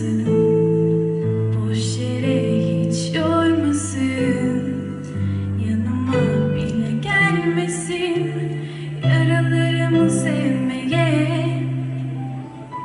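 A live band playing a slow, gentle song: a woman singing over acoustic guitar and keyboard, with a bass line that moves to a new held note every second or two.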